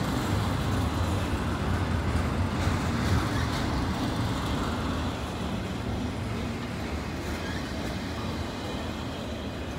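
Freight train rolling past on the main line: a steady low rumble of wheels and cars, a little louder in the first half and easing slightly after about five seconds.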